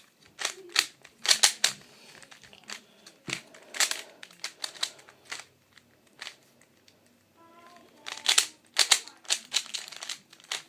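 A plastic Dayan speed cube being turned quickly while its last layer is solved: rapid clacking clicks of the layers, in bursts with a lull in the middle.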